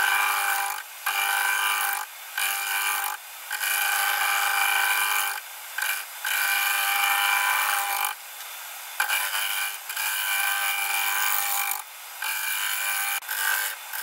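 Turning tool cutting a spinning spalted beech bowl blank on a wood lathe: a string of short cuts with brief breaks between them, knocking the corners off the blank. A steady hum from the lathe runs under the cuts.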